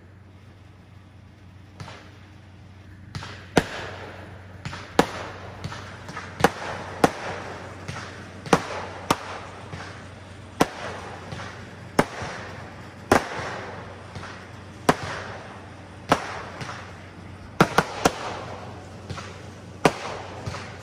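Consumer aerial fireworks going off: after a short lull, a dozen or more sharp bangs of bursting shells follow one another roughly a second apart, with crackling between them and a quick cluster of bangs near the end.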